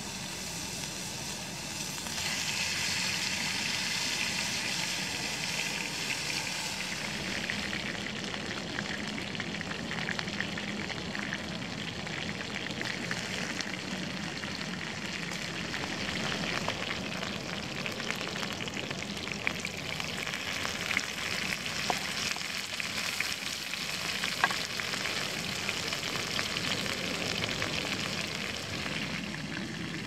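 Food frying in oil in a pan over a campfire: a steady sizzle that grows louder about two seconds in, with scattered sharp pops.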